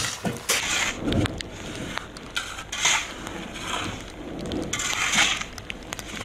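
Metal shovels scraping and scooping volcanic ash off a concrete rooftop: repeated scrapes, a few every couple of seconds.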